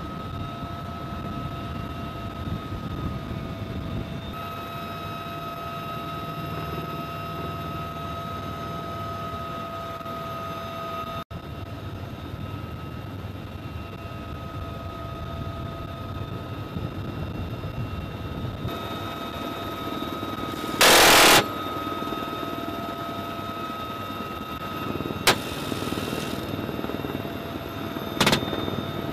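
Helicopter cabin noise with a steady whine, broken about two-thirds through by a short, loud burst of fire from a six-barrelled GAU-17 minigun. A few shorter bursts follow near the end.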